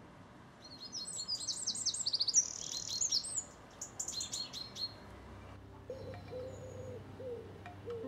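A songbird singing quick runs of high trills and whistles for a few seconds. About halfway through, soft music with a low hum fades in.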